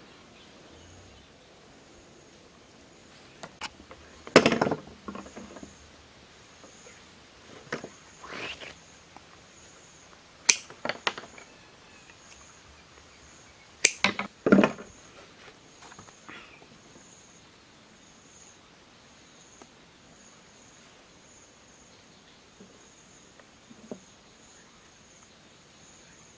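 Thin bamboo sticks knocking and clattering against one another and a wooden plank as a bamboo fish trap is put together by hand, in a few separate bursts, the loudest about four seconds in and again around fourteen seconds. Underneath, a faint high-pitched insect chirp pulses steadily.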